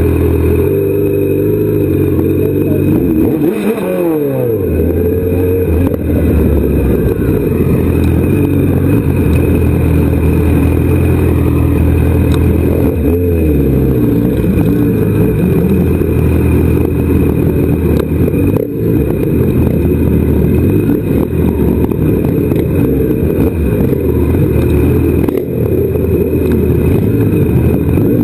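Kawasaki Z1000 inline-four engine running as the motorcycle rolls along at low speed, heard close up. The revs fall away about four seconds in and shift again about halfway through.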